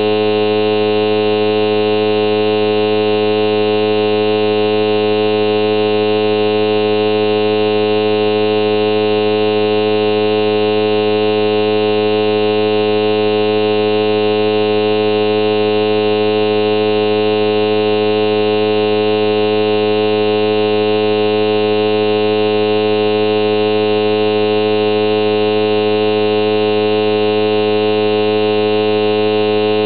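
Loud, steady electronic buzz made of many fixed pitches, strongest in a high tone, holding without any change.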